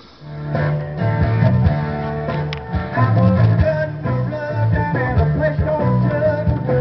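A 45 rpm rock single playing on a console stereo's record changer: a band with guitar, bass and singing, the music starting about half a second in.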